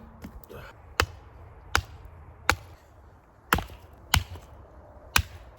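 Firewood being loaded into a metal toolbox wood stove: six sharp knocks of wood against the box, irregularly spaced about a second apart.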